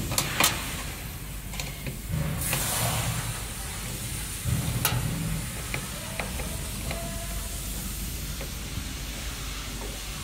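Scattered clicks and rustling as cables are handled and a plastic cable drag chain is worked loose, over a steady low hum.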